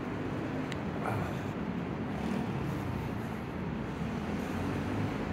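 Low, steady rumble of city road traffic with a faint engine drone that wavers in pitch.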